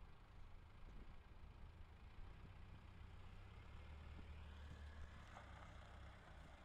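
Faint, steady low note of a Land Rover Discovery's 300Tdi turbodiesel crawling at low revs over rough ground, swelling slightly about four seconds in.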